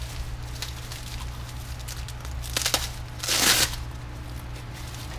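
Packaging crinkling as parts are taken out of a box: a couple of light clicks, then a louder rustling burst of about half a second past the middle, over a steady low hum.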